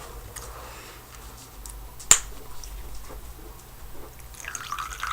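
A single sharp click about two seconds in, over a faint steady low hum, with soft rustling near the end.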